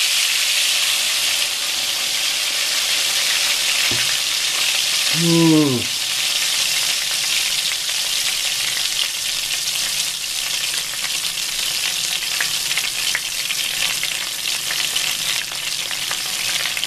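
Hot cooking oil frying vigorously in a steel frying pan, a steady dense sizzle as it bubbles and foams. About five seconds in a short vocal sound falls in pitch over the sizzle.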